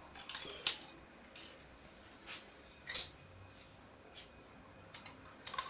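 A utensil clinking against a mixing bowl in short, irregular taps while eggs, sugar and lemon zest are beaten by hand.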